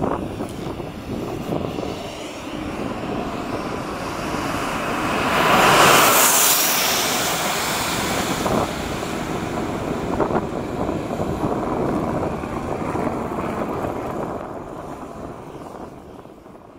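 Twin turbofan engines of a Cessna 510 Citation Mustang business jet, rising to their loudest about six seconds in, then running on steadily and fading out near the end.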